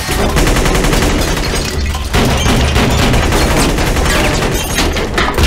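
Sustained automatic gunfire, shots packed close together, with bullet impacts and flying debris; there is a brief lull about two seconds in before the firing resumes.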